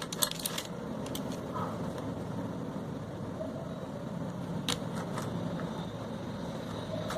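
A steady low hum with a few light clicks, several in the first second and two more near the middle, typical of small drone parts being handled and tapped.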